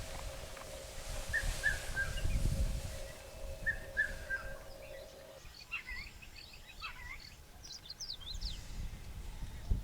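Wild birds calling: a short three-note chirp twice, then a scatter of higher, squeaky calls in the second half. Underneath are a low rumble and a faint steady hum that stops about halfway through.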